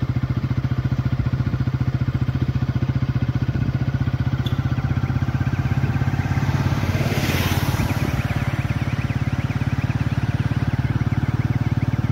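Motorcycle engine running steadily at a constant speed, with a brief rush of noise about two-thirds of the way through.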